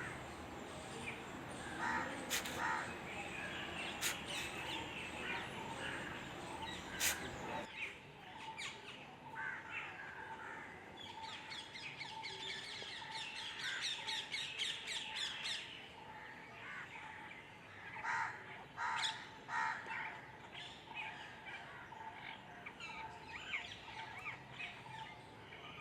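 Outdoor birdsong: many birds chirping and calling in quick, repeated notes. The low background rumble cuts off abruptly about eight seconds in.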